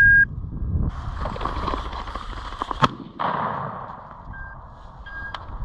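A single shotgun shot about three seconds in, fired at a flushed pheasant, after a couple of seconds of rustling. A short electronic beep at the start and two fainter ones near the end.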